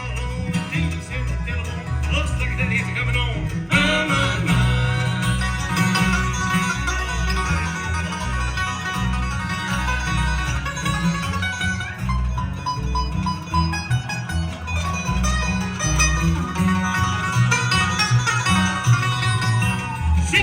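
Live bluegrass band playing, with guitar and other picked strings over a steady, even bass beat.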